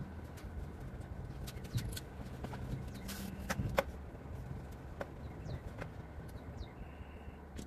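Scattered metallic clinks and knocks of hand tools on metal as someone works under the front bumper of an old van, the sharpest clink a little past the middle, over a low steady hum.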